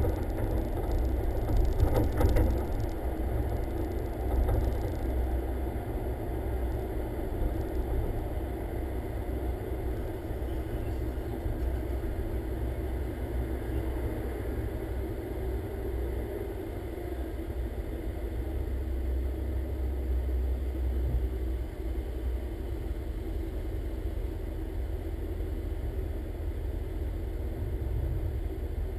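Car engine and road noise picked up by a camera mounted outside on the hood: a steady low rumble as the car drives slowly.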